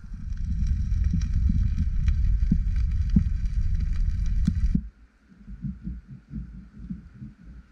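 Beans and sausages bubbling thickly in a steel frying pan over a wood campfire, with sharp crackles, for nearly five seconds. Then it cuts suddenly to a knife sawing through a crusty loaf of bread in short, uneven strokes, two or three a second.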